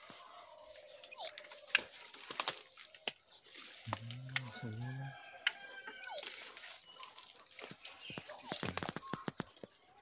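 Three short, sharp, high bird chirps, about a second in, about six seconds in and near the end. Between them come the rustle and snapping of leaves and stems as someone pushes through dense undergrowth.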